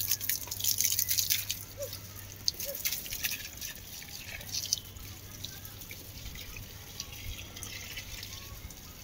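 Water dripping and trickling, with crackly splashes busiest in the first few seconds, over a faint low hum that stops about halfway through.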